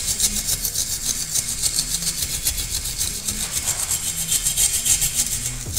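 Angle grinder dressing down a fresh weld on a steel machine part: a steady grinding hiss with a fast, even flutter.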